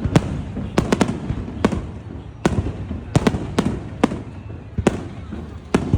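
Aerial fireworks bursting overhead: about a dozen sharp bangs at uneven intervals, some in quick pairs, each trailing off in a brief rumble over a continuous low rumble.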